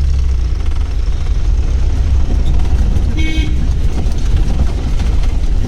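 Jeep engine running with a steady low rumble as it drives a rough ghat road, with a short high horn toot about three seconds in.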